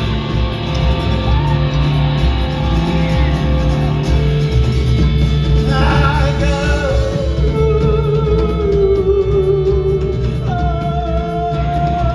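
Alt-country rock band playing live, with electric and acoustic guitars and drums, heard from the crowd in a theatre. A male lead voice comes in about six seconds in and sings long held notes over the band.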